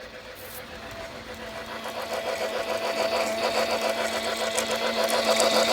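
Battery-powered Lionel G-gauge Polar Express toy train running around its track at higher speed: a steady electric motor whir with fast, even clattering, growing steadily louder.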